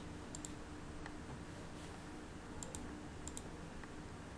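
Computer mouse clicking about four times, short sharp clicks, some as quick press-and-release pairs, over a faint steady hum.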